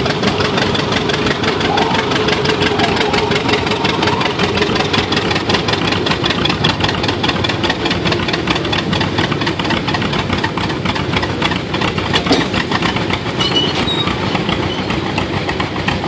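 John Deere Model A's two-cylinder engine popping steadily under load while pulling a weight-transfer sled, a fast, even chain of exhaust pulses.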